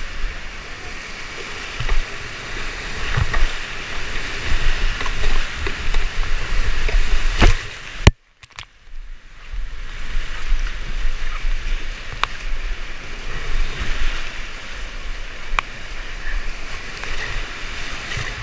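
Rushing whitewater rapids splashing around a kayak as it is paddled through them, heard close up from a camera on the boater, with a heavy low rumble and a few sharp knocks. A little past eight seconds in the sound cuts out almost completely for about a second, then the water noise returns.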